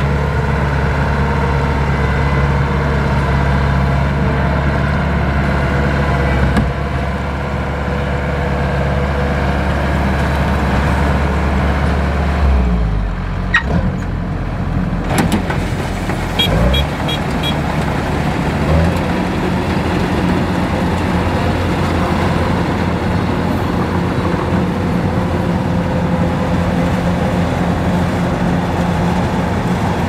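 Kubota DC-105X rice combine harvester running steadily as it cuts and threshes rice: its diesel engine and machinery make one continuous drone. The engine's low note shifts about halfway through.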